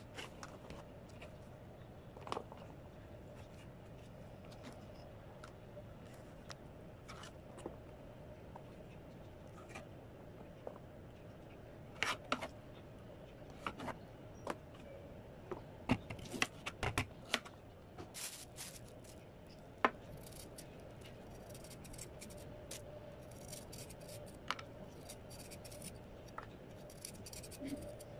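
Kitchen knife cutting chayote and carrot into strips on a plastic cutting board: irregular sharp taps and clicks of the blade through the vegetable onto the board, coming in quick clusters, with a faint steady hum underneath.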